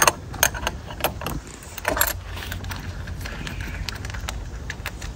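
Metal spanner clinking and tapping on the nut of an auxiliary battery's negative terminal as it is undone: a cluster of sharp clinks in the first two seconds, then fainter ticks.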